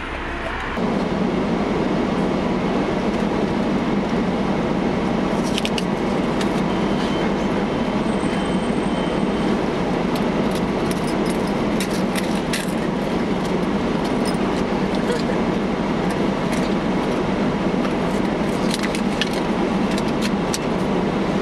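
Steady loud noise of the car's cabin, starting abruptly about a second in and holding level throughout, with a few faint clicks and rustles scattered through it.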